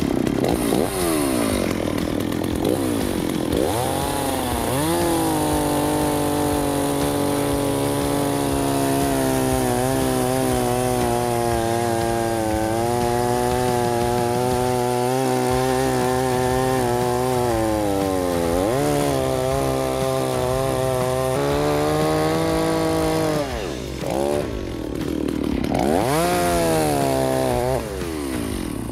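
Stihl 034 two-stroke chainsaw revving up and cutting through a tree stump with a freshly sharpened chain. The engine pitch sags and recovers as the cut loads it, with a brief drop and a fresh rev-up near the end.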